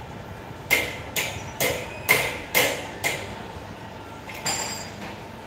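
A run of sharp knocks, six about half a second apart, then a seventh about a second and a half later that rings briefly.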